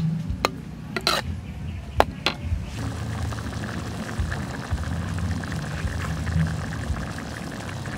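Metal ladle stirring chili sauce in an iron wok, knocking and scraping against the pan four or five times; from about three seconds in, the sauce bubbles and sizzles steadily at the boil.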